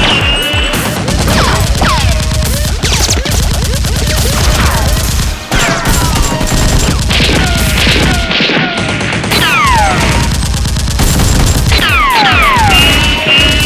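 Dubbed-in gunfire sound effects firing in rapid bursts over a steady background music track, with several falling whistles throughout.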